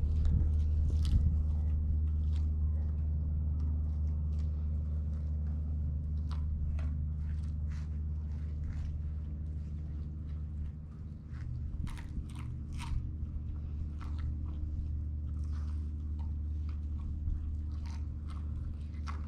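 Greyhounds crunching frozen raw chicken pieces, bones and all: irregular sharp cracks and crunches over a steady low hum.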